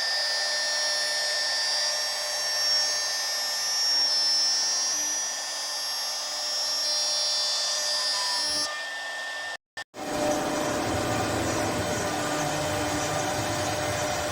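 A woodworking machine's motor runs with a steady high-pitched whine. About two-thirds of the way through it drops out briefly, and a different, lower machine hum takes over.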